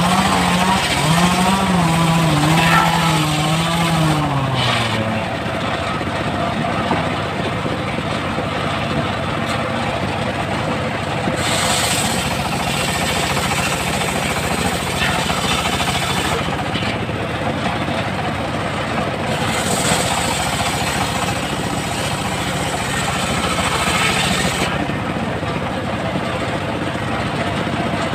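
Homemade engine-driven table circular saw running steadily while its blade rips through a trembesi log, the cutting noise growing harsher and brighter twice as the wood is fed in. A person's voice rises over the machine for the first few seconds.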